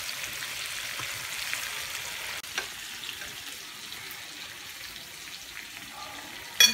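Marinated chicken pieces sizzling steadily in melted butter in a frying pan, with small clicks of a fork turning them. A sharp metallic clink near the end.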